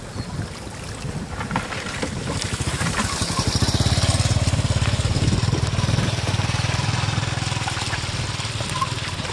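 A small engine running with a rapid, even pulse, growing louder from about two seconds in, loudest around the middle, then easing off near the end.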